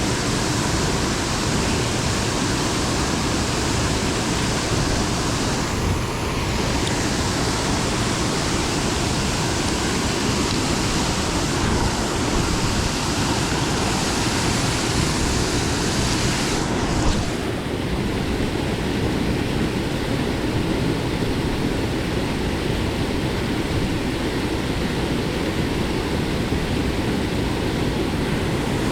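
Steady rush of water at the foot of a dam running high after a flood. About 17 seconds in there is a brief knock, and the hiss turns slightly duller.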